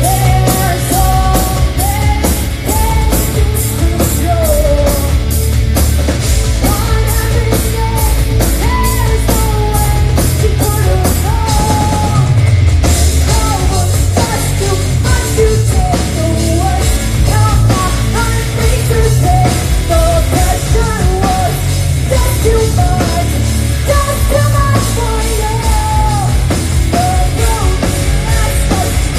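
Live hard rock band playing on stage: a female lead vocal over guitar, bass and a steady drumbeat, with heavy bass.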